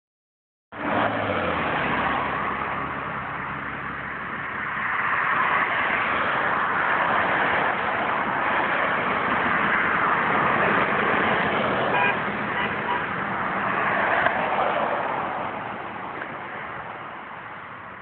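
Road traffic passing close by, the tyre and engine noise swelling and fading as cars go by, with a short car-horn toot about two-thirds of the way through.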